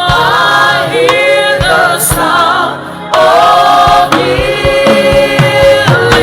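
Gospel music with a choir singing in harmony, long held notes over a drum beat.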